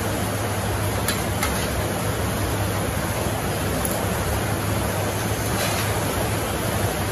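Heavy rain falling outside, heard from indoors as a steady even hiss over a low hum. A couple of faint clicks of spoons on a metal plate come about a second in.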